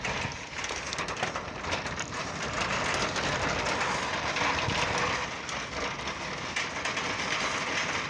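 Metal shopping cart rattling as it rolls over pavement: a steady rumble with fine clattering.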